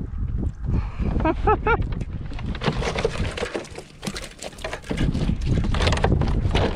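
A freshly landed red drum thrashing in a rubber landing net as it is hauled aboard a kayak, with water splashing and rapid clattering knocks against the net and hull from about two and a half seconds on. Wind buffets the microphone throughout.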